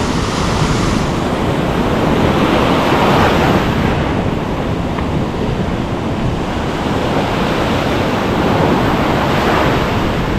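Ocean surf washing onto the beach, with wind buffeting the microphone. The surf swells louder about three seconds in and again near the end.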